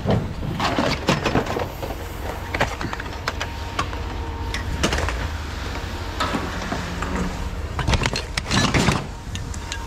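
Scrap metal being handled: irregular clanks and knocks, with a denser clatter about eight seconds in, over a steady low rumble.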